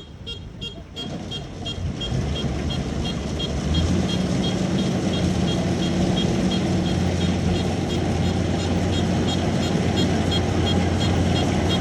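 Rice combine harvester running steadily in the field, its engine a low hum that grows louder over the first few seconds, with a quick, regular high ticking from the machinery throughout.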